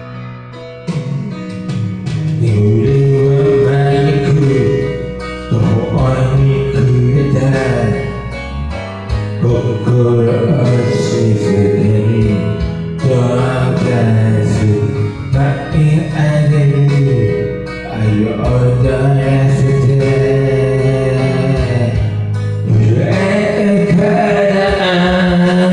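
A man singing into a handheld microphone over a karaoke backing track, his amplified voice carrying the melody above the accompaniment.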